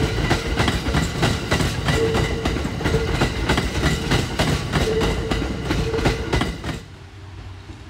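The EF81-hauled E26 series Cassiopeia train passing at speed, its wheels clicking rapidly over the rail joints. The sound cuts off sharply near the end to a much quieter steady hum.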